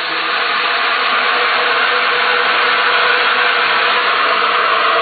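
5-gallon water filling machine running: a loud, steady motor sound with a hiss over it.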